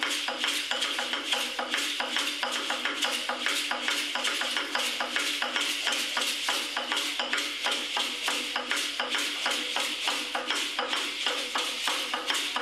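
Aztec dance music: rattles shaken in a fast, even rhythm, several sharp strokes a second, with light percussion.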